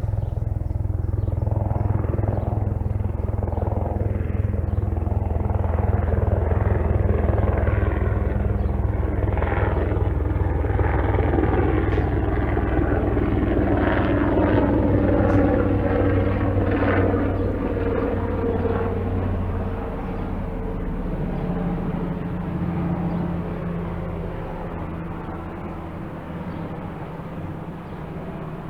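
Helicopter flying past, its rotor beating in a fast low thud over the turbine. It is loudest in the middle, then the pitch drops and the sound fades away over the last ten seconds as it moves off.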